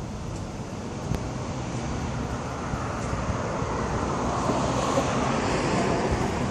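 Tesla Model S approaching: its tyre and road noise builds steadily over the last few seconds, with no engine note, over wind rumbling on the microphone.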